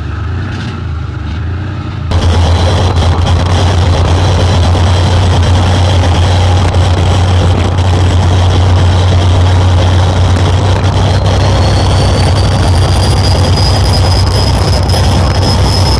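Isotta Fraschini CRM 18DSS turbocharged diesel W18 engines of a torpedo boat, running at low speed for about two seconds, then loud and steady at high speed with a deep drone and the rush of wind and water. A thin high whine rises slowly from about eleven seconds in.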